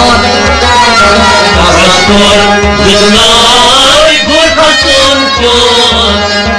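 Kashmiri Sufi kalam: a sung melody over instrumental accompaniment with a steady low drum beat.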